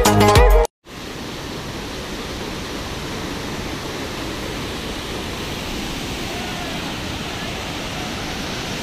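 Music cuts off just under a second in. After that comes the steady rush of water pouring out through a lake dam's opened sluice gates.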